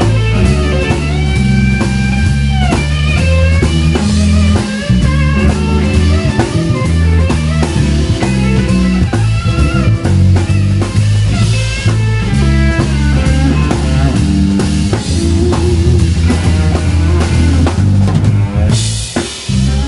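Live instrumental rock band: electric guitar playing a melodic line with bent notes over electric bass and a drum kit.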